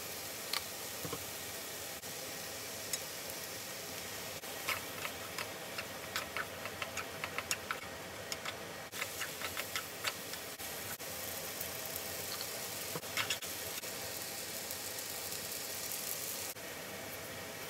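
Glass noodles and vegetables stir-frying in a pan: a steady sizzle. A run of clicks from a wooden spatula and chopsticks knocking against the pan falls in the middle, with a few more clicks a little later.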